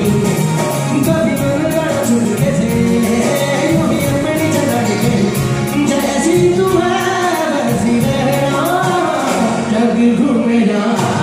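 Live music: a male lead singer's ornamented vocal line, gliding up and down in pitch, over band accompaniment with a steady percussion beat.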